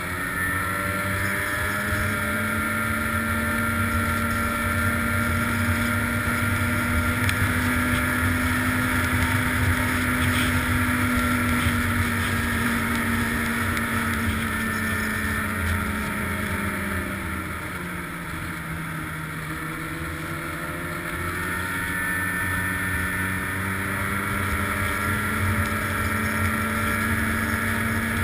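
Snowmobile engine running steadily at speed. About two-thirds of the way through, its pitch and loudness sag as the throttle eases, then climb back.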